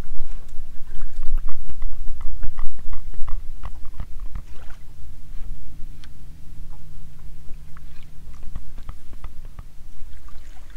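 Flats skiff being push-poled across calm water: water lapping and clicking against the hull, with many small knocks and a steady low rumble underneath.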